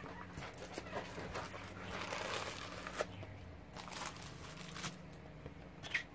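Handling of a cardboard mailer and a mouse pad in a clear plastic sleeve: the sleeve crinkles and rustles as the pad is slid out and laid down, with a few light taps and scrapes.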